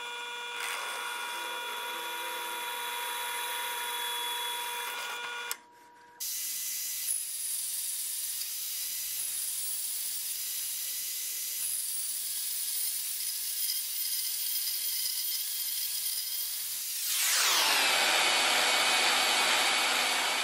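A drill press motor whines steadily while it drills a thin metal strip. It stops after about five seconds, and then a band saw runs, cutting the metal strip. About three seconds before the end the saw gets louder and its pitch drops and settles.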